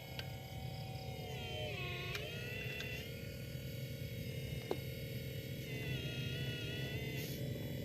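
Whine of a radio-controlled construction model's electric motor, a steady tone over a low hum, dipping in pitch about two seconds in, shifting again around six seconds in.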